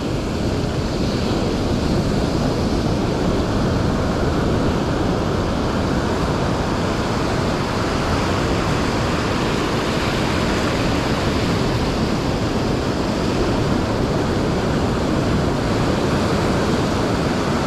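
Ocean surf breaking and washing up a sandy beach: a steady, unbroken wash of waves and foam.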